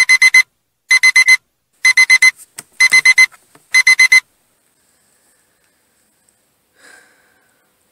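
Smartphone wake-up alarm beeping in quick groups of four, about one group a second, cut off after about four seconds when it is switched off by hand.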